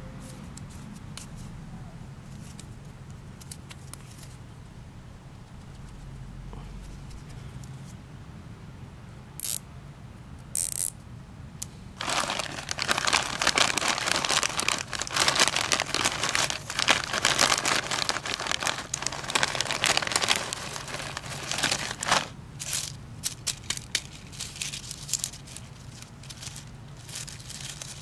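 A clear plastic bag of white nylon zip ties crinkling and rustling as hands dig into it and pull out a bundle of ties. The sound is dense for about ten seconds from around twelve seconds in, then turns to scattered crackles. Before that there are only a couple of short rustles.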